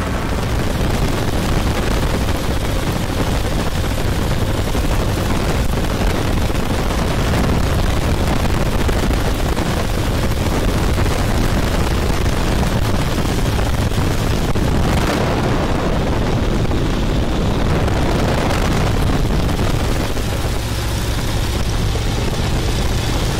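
Open-cockpit biplane in flight: a steady engine and propeller drone under a heavy rush of wind buffeting the microphone, with one stronger gust about fifteen seconds in.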